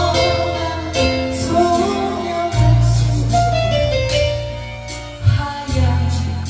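Instrumental music: a song intro with a held melody line over a deep sustained bass and a light steady beat.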